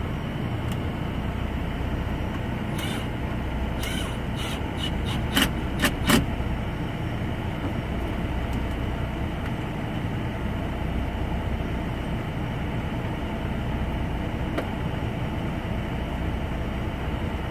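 Truck engine idling steadily, with a few sharp clicks and knocks between about three and six seconds in.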